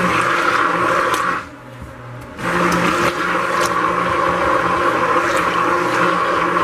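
Stick blender running in a bowl of cold process soap batter, a churning whir with motor hum. It runs for about a second and a half, stops for about a second, then runs again.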